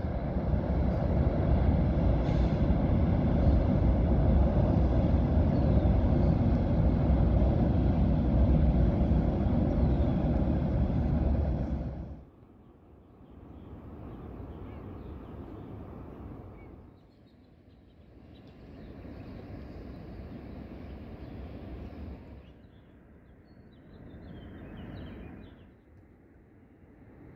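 Via Rail passenger train passing close by, a loud steady rumble that cuts off sharply about twelve seconds in as the train clears. After that, fainter vehicle noise rises and falls three times.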